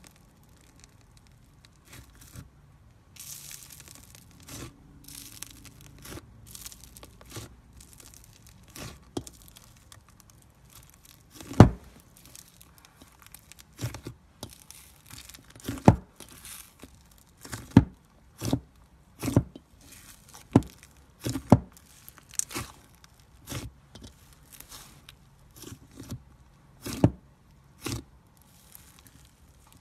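Hands pressing and squeezing thick slime in a metal bowl: crackling of plastic-bead crunchy slime at first, then, from about a third of the way in, a run of sharp pops roughly once a second as the fingers squeeze the fluffy slime.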